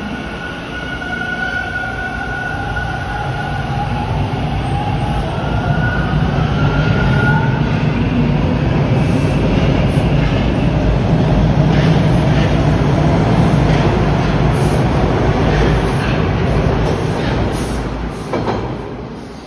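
TTC Bombardier T1 subway train pulling out and passing close by. A whine from the traction motors climbs slightly in pitch over the first several seconds under a growing rumble of wheels on rails, with a few clacks over rail joints. The sound drops away sharply as the last car passes near the end.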